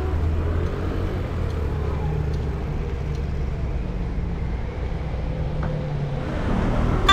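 Street traffic noise: a steady low rumble of car engines on a narrow street, with a few faint clicks.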